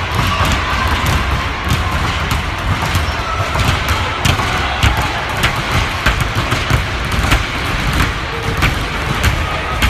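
Two basketballs being dribbled on a hardwood gym floor: repeated bounces, a few a second, over a steady low rumble.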